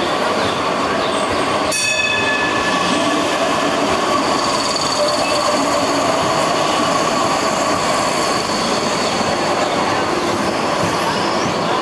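Electric street trams running past close by on street track, with a steady high-pitched whine as they pass. A single bell strike rings out about two seconds in.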